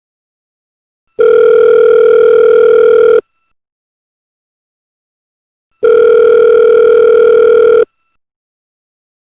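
Telephone ringing tone on the line, the tone a caller hears while the call rings out. Two steady beeps of about two seconds each, with a gap of silence of about two and a half seconds between them.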